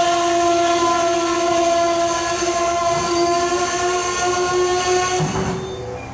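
Locomotive horn sounding one long, steady multi-note chord that cuts off about five and a half seconds in.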